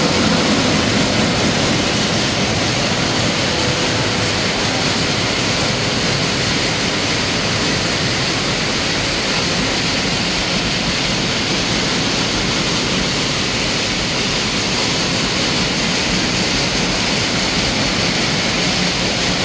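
Industrial cashew-nut screening machine and its bucket elevator running with a load of raw cashew nuts, making a loud, steady rushing noise. A faint steady hum fades out a few seconds in.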